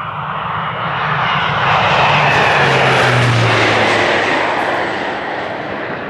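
An Air Tractor AT-802 crop duster's turboprop engine and propeller make a low pass. The sound builds to a peak about halfway through and then fades, its pitch dropping as the plane goes by.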